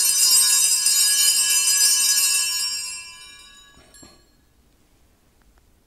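Altar bells ringing steadily at the elevation of the chalice, marking the consecration, then dying away after about three seconds. A soft knock near four seconds as the chalice is set down on the altar.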